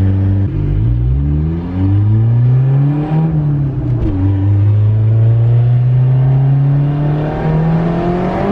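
Turbocharged Honda Wagovan four-cylinder engine under a hard full-throttle pull. The engine note climbs through a gear, drops at an upshift about four seconds in, then climbs again more slowly in the next gear, hard enough to spin the tyres.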